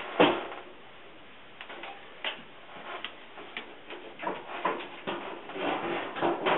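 Irregular knocks, clicks and clatters of dryer panels and parts being handled during reassembly. A sharp knock just after the start is the loudest, and the knocks come more often in the second half.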